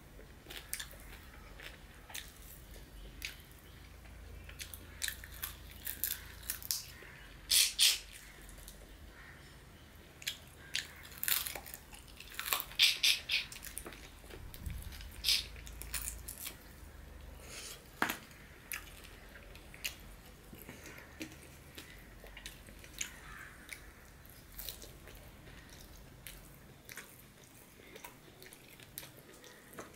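Close-up eating sounds of bone-in chicken curry and rice eaten by hand: wet chewing, biting and lip smacks in irregular clusters of clicks, loudest around 8 and 13 seconds in.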